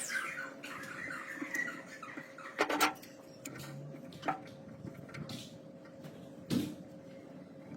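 A few sharp knocks and clicks, with some scraping in the first two seconds, over a faint steady hum.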